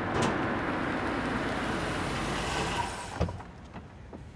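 A car running and drawing up, its steady noise dropping away about three seconds in, followed by a single soft knock.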